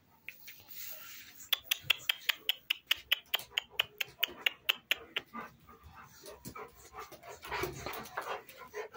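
A dog panting hard and fast, about five sharp breaths a second for a few seconds. A rougher, noisier stretch follows near the end.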